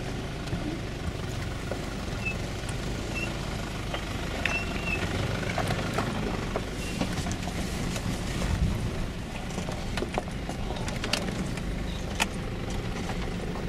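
Nissan Patrol's diesel engine running at low revs while the truck crawls over rocky off-road ground, with scattered sharp knocks and creaks from stones and the body over the rough track.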